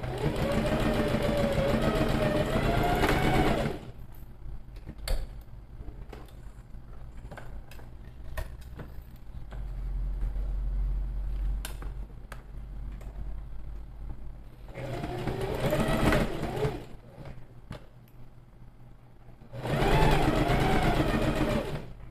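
Domestic electric sewing machine stitching a seam through two layers of cotton lining fabric. It runs in three bursts: a long one at the start, a short one in the second half and another near the end. Faint clicks fill the pauses between bursts.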